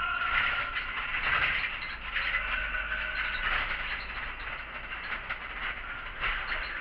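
City bus under way, heard from the driver's cab: steady running and road noise with frequent small rattles and clicks from the bodywork.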